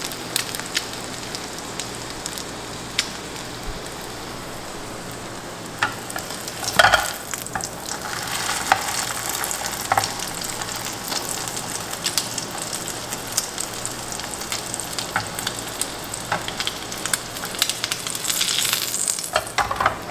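Egg-dipped ham-and-cheese sandwich sizzling as it fries in butter in a nonstick pan. Scattered clicks and scrapes of a spatula and fork against the pan come through as the sandwich is turned on its sides, with the loudest knock about seven seconds in.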